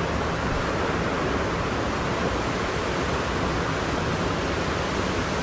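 Steady, even rushing noise of a fireplace-and-winter ambience track, with no distinct crackles.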